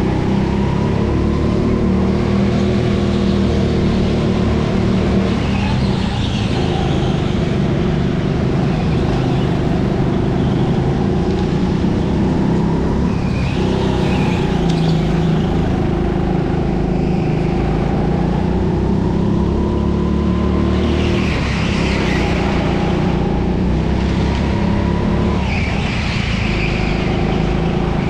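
Onboard sound of a racing go-kart's engine running hard, its pitch rising on the straights and dropping about four times as the kart slows for corners, with short tyre squeals through those corners.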